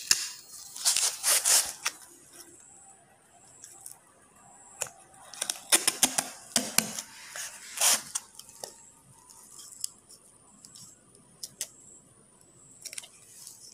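Duct tape being pulled off its roll in several ripping bursts, mostly in the first eight seconds, with smaller crackles and taps later as it is pressed onto a concrete weight plate.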